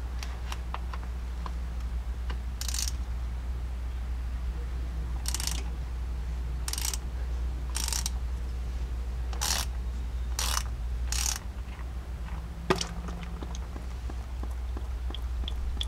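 Hand ratchet with a T55 Torx bit backing out a transfer case drain plug: about seven short ratcheting strokes over several seconds, then a single sharp click, over a steady low hum.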